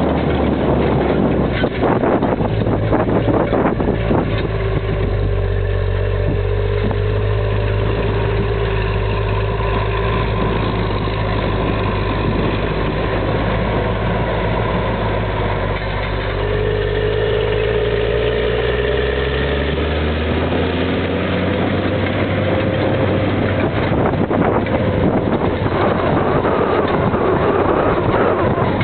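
Diesel engine of a Versatile 2375 four-wheel-drive tractor running steadily under heavy draft load, with the rumble and rattle of a Väderstad TopDown cultivator's discs and tines working through dry stubble. The engine note drops in pitch about two-thirds of the way through as the tractor passes close by.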